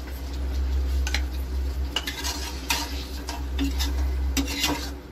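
Steel spatula scraping and clicking against a metal kadai while cornflour slurry is stirred into thick chilli sauce, the clicks coming irregularly and more often near the end. A steady low hum runs underneath.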